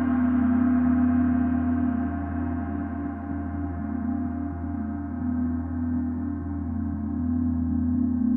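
Large Paiste symphonic gong ringing in a sustained wash of overtones, its strongest tone low. The loudness eases a few seconds in and swells again near the end, while the highest overtones slowly fade.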